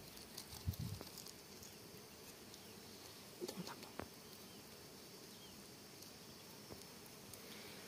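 Faint buzzing of honeybees on a wild comb being cut with a knife, with a few soft clicks from the cutting in the first half.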